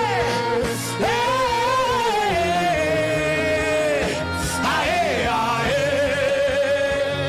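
Gospel worship music: one voice sings long held notes that slide up and down, over sustained keyboard chords and a steady low bass pulse.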